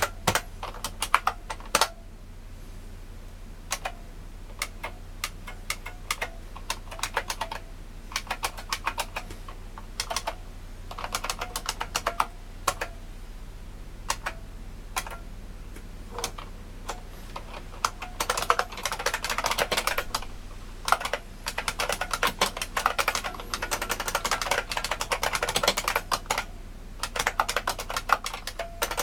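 IBM Model M 1391401 keyboard's buckling-spring key switches being typed on, loud sharp clicks: scattered single keystrokes at first, then fast runs of typing with short pauses between them.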